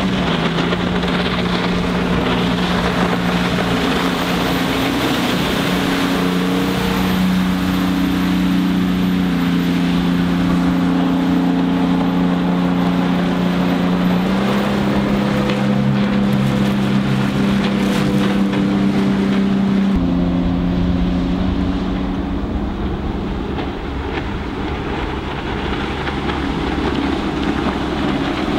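Yanmar 240 hp turbo diesel of an aluminium jet boat with a Hamilton jet drive, running at speed as a steady drone, with water rush and wind on the microphone. The pitch shifts a few times, most sharply about halfway through and again a few seconds later.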